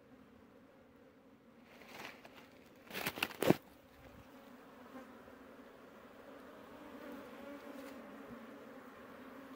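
A swarm of Indian honey bees buzzing around an opened hive: a steady hum that grows louder through the second half. About three seconds in, a few sharp knocks come from the bee-covered wooden box being handled.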